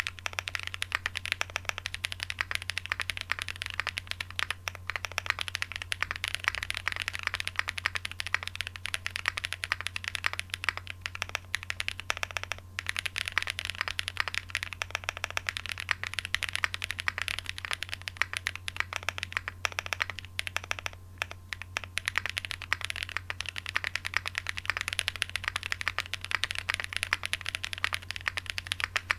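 Continuous fast typing on a Graystudio Space 80 Apollo mechanical keyboard with lubed Holy Boba tactile switches, an FR4 plate and GMK keycaps: a dense stream of key clacks with a couple of brief pauses. A low steady hum runs underneath.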